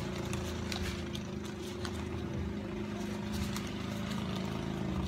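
A motor running steadily with a low drone, under faint rustling and flicking of banknotes being counted by hand.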